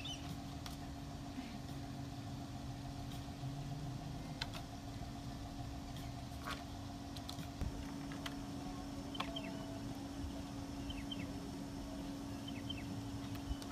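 Steady low mechanical hum throughout, with a few scattered clicks. From about nine seconds in, faint short high chirps come in pairs.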